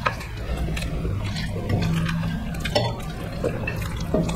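Close, wet eating sounds from two people chewing rice and curry eaten by hand, with scattered lip smacks and mouth clicks.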